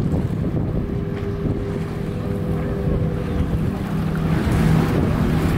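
Wind buffeting the microphone and small wind-driven waves lapping in shallow water, over the faint steady drone of a distant motorboat engine.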